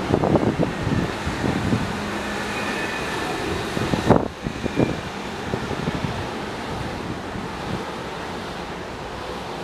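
Wind buffeting the microphone in gusts over a steady rushing background. The loudest gusts come in the first two seconds and again about four seconds in.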